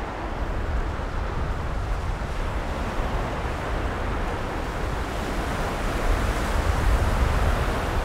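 Gulf surf washing steadily onto the beach, with wind buffeting the microphone as a low rumble that grows stronger over the last few seconds.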